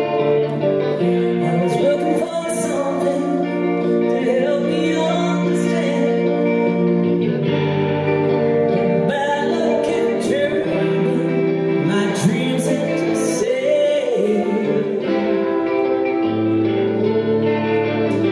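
A rock band playing live, a woman singing lead over electric guitars and drums with cymbal hits.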